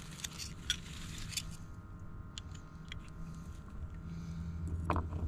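Faint scattered clicks and scrapes of small handling sounds over a low, steady engine hum that grows louder near the end.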